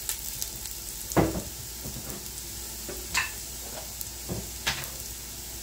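Grated garlic sizzling steadily in hot oil in a large pressure cooker, with a few sharp clicks on top.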